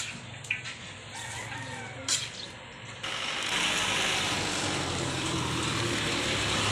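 A rooster crowing faintly, with a few sharp clicks in the first seconds. About three seconds in, a steady, louder noise takes over.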